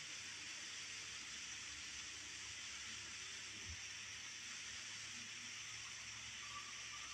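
Waterfall: water pouring down a rock face and splashing, a steady hiss.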